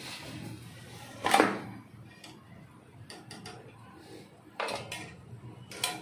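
Fried cashew-shaped mathri pieces clattering as they are tipped from a metal spoon onto a steel plate. The loudest clatter comes a little over a second in, with two shorter clinks of metal near the end.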